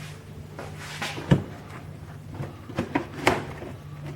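Knocks and clicks of the car's plastic under-covers being handled and lined up to refit their clips: one sharp knock just over a second in and a cluster of clicks around three seconds, over a steady low hum.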